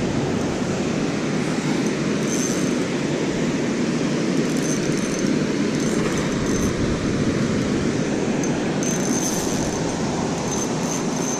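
Steady rushing of water pouring through a spillway, with a few brief high-pitched squeaks scattered through it.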